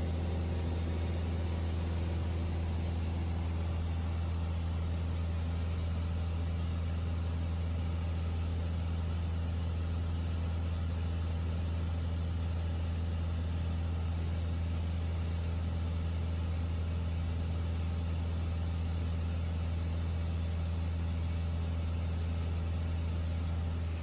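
Piper Dakota's six-cylinder Lycoming O-540 engine and propeller droning steadily in flight, heard inside the cabin.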